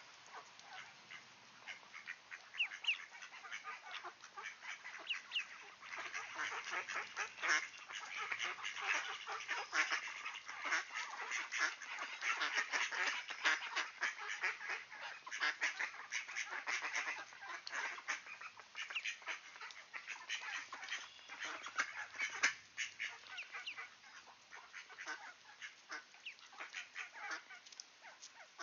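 Ducklings peeping, with many short, high calls overlapping in a busy chorus that is densest in the middle and thins out near the end.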